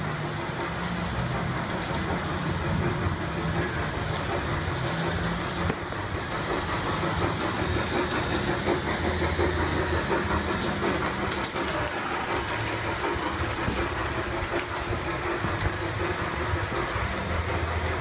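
G-scale model steam locomotive running steadily along its track, its electric drive humming and its wheels rolling on the rails.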